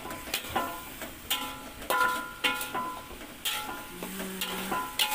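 A metal spatula scraping and striking a steel wok while stir-frying meat, chilies and tomatoes. The strikes come irregularly, each ringing briefly, over the sizzle of the frying.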